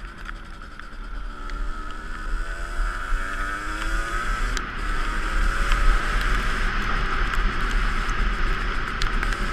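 Two-stroke dirt bike engine revving under way, its pitch climbing over the first few seconds and getting louder about halfway through. Heavy wind rumble sits on the microphone throughout.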